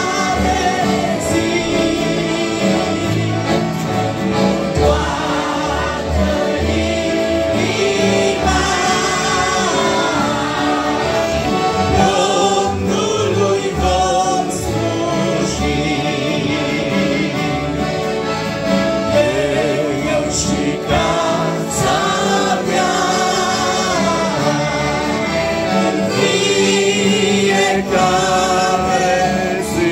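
A family group of women's and children's voices singing a Romanian Christian hymn together, accompanied by two piano accordions, acoustic guitars and a keyboard, with a steady bass beat underneath.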